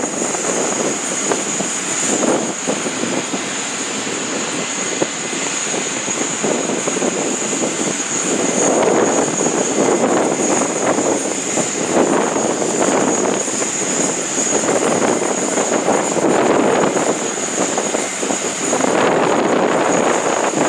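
Aircraft jet engine noise: a steady high whine over a rushing noise that grows stronger from about eight seconds in.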